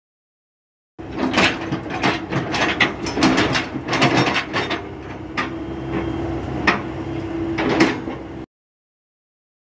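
Komatsu PC78US-6 hydraulic excavator running, a steady engine hum under repeated sharp metallic clanks and knocks as the boom and arm move. The clanks are busiest in the first few seconds; the sound starts about a second in and cuts off near the end.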